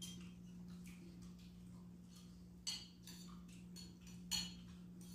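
Metal spoons clinking and scraping against bowls as people eat, with a few short sharp clinks, the loudest about two and a half and four and a half seconds in. A steady low hum runs underneath.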